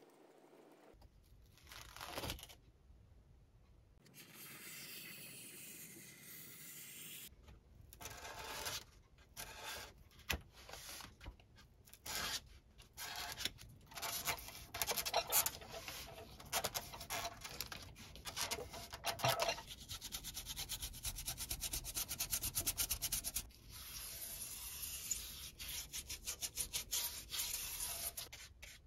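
Hand tools rubbing and scraping on a foam board: a steady scraping hiss for a few seconds, then quick repeated strokes as a pointed tool works the carved foam bricks and a paintbrush scrubs and dabs paint into them.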